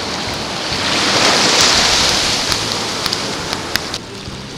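Small waves washing up and running back over a sandy shore, a rush of surf that swells about a second in and slowly fades, with a few faint ticks near the end.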